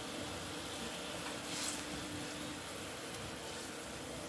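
Spiced egg curry gravy boiling vigorously in a kadai, a steady bubbling sizzle. About a second and a half in there is a brief louder hiss as the fried eggs go into the boiling gravy.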